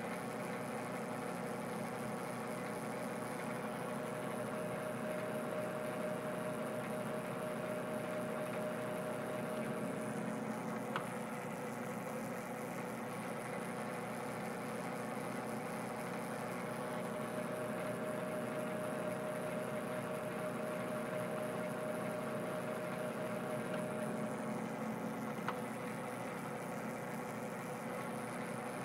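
Metal lathe running steadily during threading passes, its hum swelling and easing twice. Two small clicks come about eleven and twenty-five seconds in.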